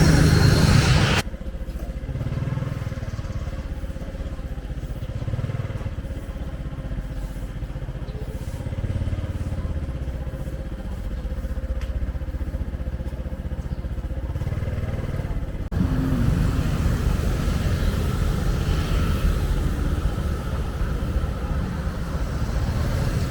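Motorcycle and other road-vehicle engines running in street traffic, a steady low rumble with a faint steady hum. The sound changes abruptly twice, about a second in and again about two-thirds of the way through.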